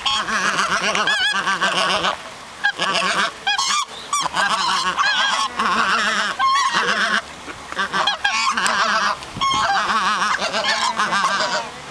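A flock of geese honking and calling loudly in many overlapping calls, in bursts with short pauses, as they crowd round to be hand-fed.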